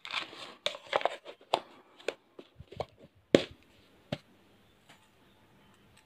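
A small replacement charging port being handled on a hard work surface: a rustle, then a string of sharp clicks and taps over the first four seconds, the loudest about three seconds in.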